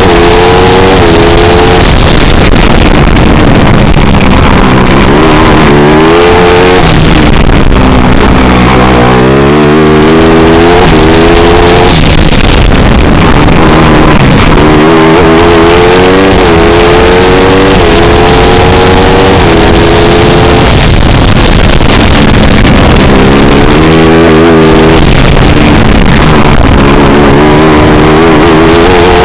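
A 250 cc four-stroke kart engine, recorded on board, running hard and loud. Its pitch climbs under acceleration and drops off for the corners, several times over.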